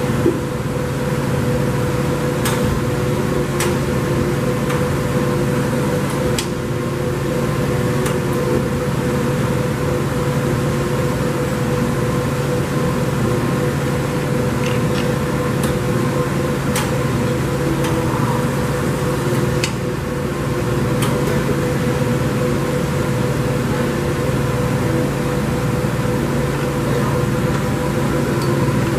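Motch twin-spindle CNC vertical turret lathe running with a steady, pitched machine hum, with a few light clicks scattered through it.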